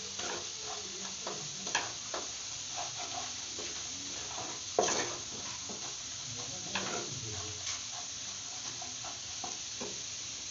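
Chopped garlic sizzling in butter and oil in a nonstick frying pan while a wooden spatula stirs it, scraping and tapping against the pan now and then. The loudest scrape comes about five seconds in.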